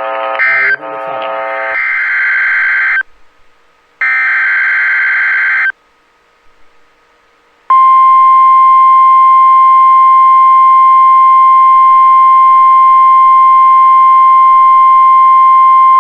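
Emergency Alert System (SAME) data bursts, a harsh digital screech repeated in short blasts, then about eight seconds in the steady NOAA Weather Radio 1050 Hz warning alarm tone, one loud unbroken tone that signals an alert is about to be read.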